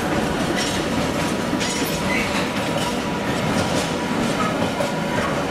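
Container freight train's flat wagons rolling past close by: a steady, loud rumble of wheels on rail with scattered clicks.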